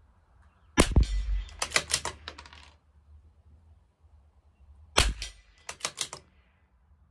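Two shots from a CZ 457 LRP bolt-action .22 LR rifle, about four seconds apart. Each shot is followed by a quick run of clicks as the bolt is worked to eject the case and chamber the next round.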